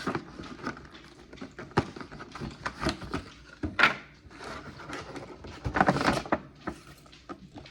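Objects being handled on a table: irregular knocks, clicks and rustles, the sharpest about four seconds in and a cluster around six seconds in.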